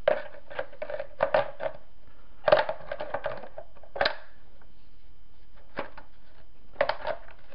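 Irregular clusters of plastic clicks, knocks and scraping as the airsoft gearbox is worked back into the G&G F2000 rifle's plastic body, a tight fit.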